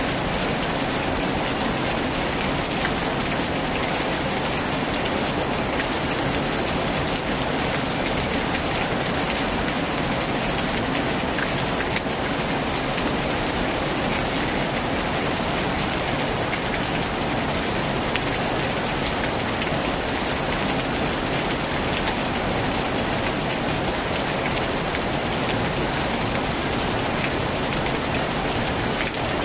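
Heavy rain falling steadily on a tin roof, an even hiss with no breaks.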